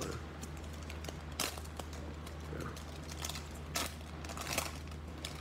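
Scattered crinkling and rustling of plastic and foil wrapping as trading-card blaster boxes and packs are handled and opened, with a few sharper crackles, over a steady low hum.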